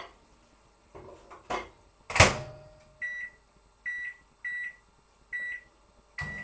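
Microwave oven being shut and set: a few light clicks and a loud knock of the door closing about two seconds in, then five short, high-pitched keypad beeps as the cooking time is entered. Near the end the oven starts running with a low, steady hum.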